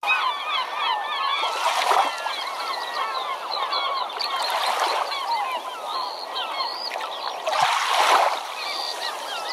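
A flock of birds calling, many short overlapping calls, with waves washing in about every three seconds.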